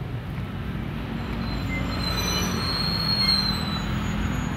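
A motor vehicle's engine running close by, a steady low hum that grows slightly louder midway, with a thin high squeal over it for a couple of seconds in the middle.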